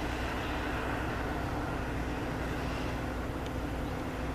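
Steady trackside background rumble and hiss with a faint low hum, unchanging throughout.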